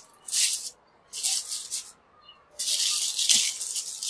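Plastic packaging rustling in three uneven bursts as ink bottles are handled, with one short knock about three and a half seconds in.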